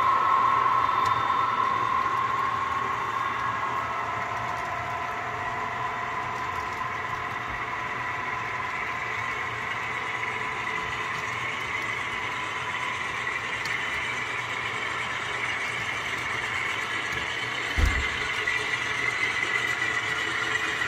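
Model trains running on a layout, giving a steady motor-like hum with pitched tones; one tone fades over the first couple of seconds and a higher one grows louder later. A single low thump comes near the end.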